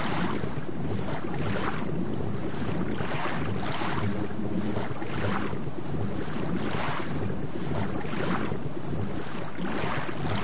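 Rushing water noise that swells and falls about once a second, heard underwater.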